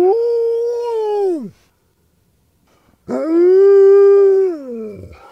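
Siberian husky howling: two long howls, each held at a steady pitch and dropping off at the end, with a pause of about a second and a half between them.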